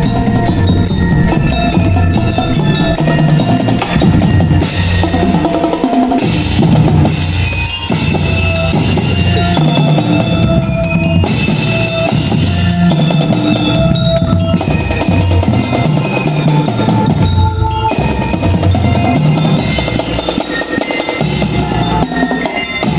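Marching band playing: mallet percussion, bell-like glockenspiel and marimba notes, sounds over drums and bass drum in continuous music.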